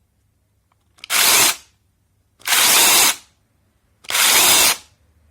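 Bosch EasyChain 18V-15-7 battery mini chainsaw's brushless motor and chain run in three short bursts of about half a second each, stopping fully between them.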